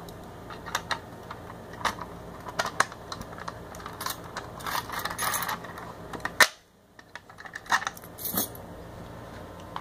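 Resetting a Simplex 4251-20 single-action fire alarm pull station: a key jingling and turning in its lock and the pull-down handle being pushed back into place. The result is a run of small metal clicks and rattles, with one sharper click about six and a half seconds in.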